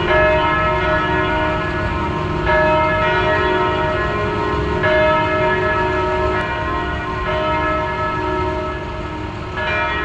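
Church bell tolling, struck about every two and a half seconds, each stroke ringing on and fading into the next, over a steady low rumble.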